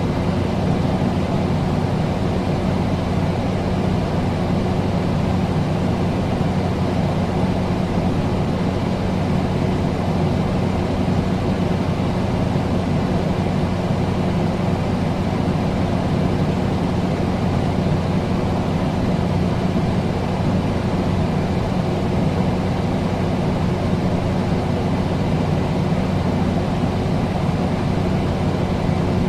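Air conditioner running steadily: a constant hum with an even rush of air, unchanging throughout.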